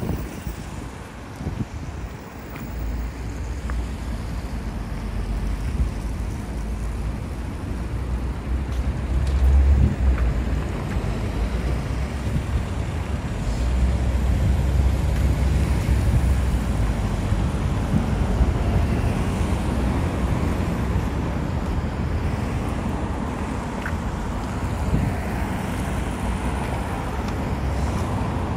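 Steady road traffic on a busy multi-lane city street: cars and buses passing as a continuous rumble. It swells louder about a third of the way in and again around the middle.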